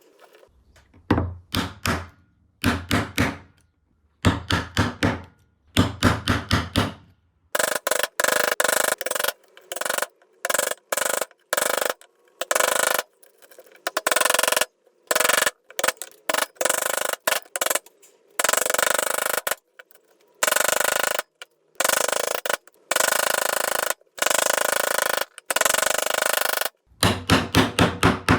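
Hand tools working a block of Korean mahogany. First come short groups of quick, rapid strokes, then a long run of scraping strokes about a second each with brief breaks, then quick strokes again near the end.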